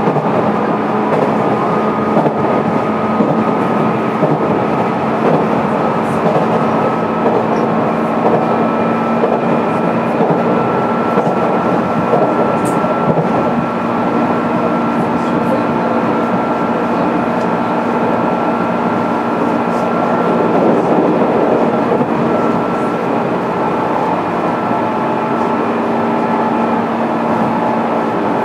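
JR East 205 series electric train heard from inside its motor car while running at a steady speed. The traction motors and gears give a steady whine of several held tones over the continuous rumble of wheels on rail, with a few faint clicks.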